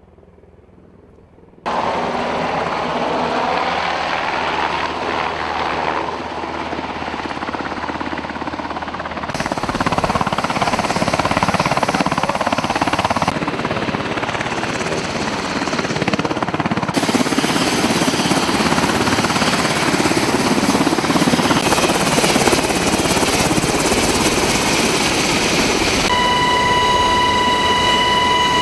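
Helicopter running, a loud, steady mix of rotor and turbine noise that starts suddenly after a brief quiet moment and changes abruptly several times between shots. A steady high whine comes in near the end.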